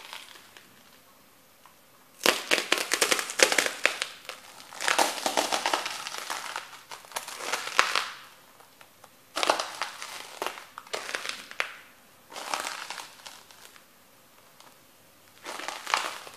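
Crunchy bread sticks crushed and ground under the soles of Fila boots, crackling into crumbs. After a couple of seconds of quiet comes a long stretch of crunching, then three shorter bursts with pauses between.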